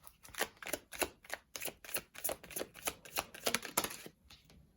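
Tarot cards being shuffled by hand: a quick, irregular run of crisp card flicks and taps that stops about four seconds in.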